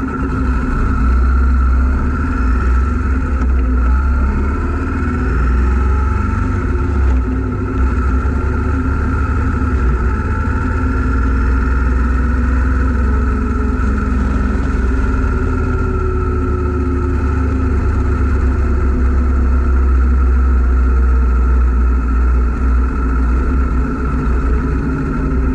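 Yamaha V Star 950's air-cooled V-twin engine running under steady throttle while riding, heard close up with a strong low rumble and road noise. The pitch and level stay fairly even throughout.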